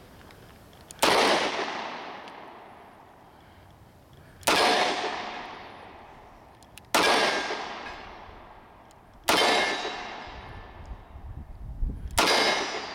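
Ruger LCR .357 Magnum snub-nose revolver fired five times, slow aimed shots about two and a half to three seconds apart, each report trailing off in a long echo.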